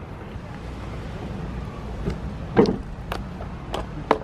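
A few short knocks and clatters, the loudest about two and a half seconds in, as a takeout food container, a bag and a phone are set down on a wooden picnic table, over a steady low background rumble.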